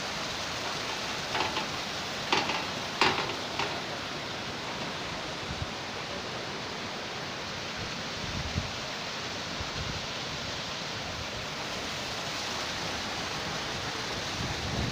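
Steady rush of flowing water, with a few short sharp knocks in the first few seconds.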